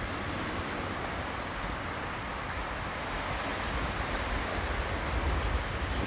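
Steady wash of small waves on a pebbly shore, with wind buffeting the microphone in a low rumble that swells a little near the end.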